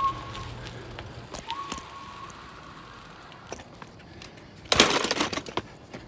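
Bicycle riding along with light scattered clicking, a brief thin whine about a second and a half in, and a loud rustling burst of handling or wind noise on the phone microphone about five seconds in.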